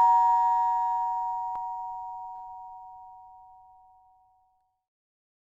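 Doorbell chime's two tones ringing on after being struck and slowly fading away, dying out about four seconds in, with a faint click about a second and a half in.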